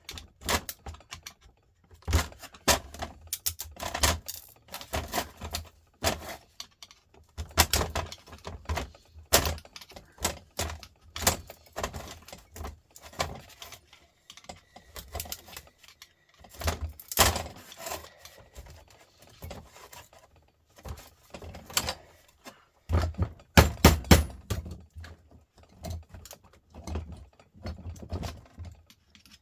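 Irregular clicking, knocking and scraping of hand tools and metal parts as a Volvo truck starter motor is dismantled by hand and its copper windings are worked loose, with a cluster of heavier knocks a little after two-thirds of the way through.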